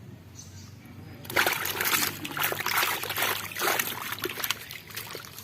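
Water splashing and sloshing in irregular bursts, starting suddenly about a second in.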